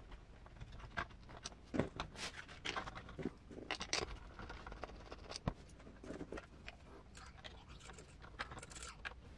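Faint, scattered clicks, taps and rustles of small tools and parts being handled while working on an RC scale truck's leaf-spring suspension.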